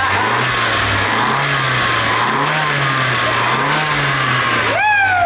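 A car engine running, its low note rising and falling a little as it is blipped. Near the end a loud pitched sound slides down.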